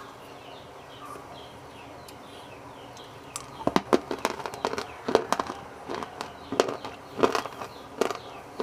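Hard, sun-dried pieces being bitten and crunched close to the microphone. From about three and a half seconds in, loud sharp cracks come in quick succession: the pieces are dried so hard that they crack loudly with each bite.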